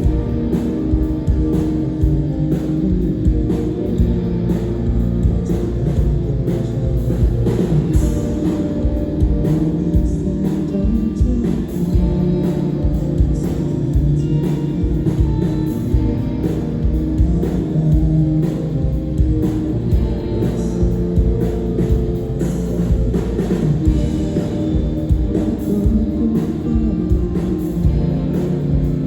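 Live rock band playing: loud, distorted electric guitars over bass and a drum kit, heard through a crowd-side recording of a PA with a heavy low end.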